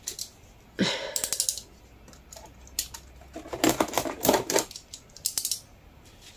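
Small scissors snipping and scraping at the packing tape on a cardboard box, in a few short runs of quick sharp clicks.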